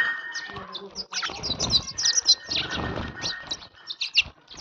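Sparrow chirping repeatedly, many short, high chirps in quick succession.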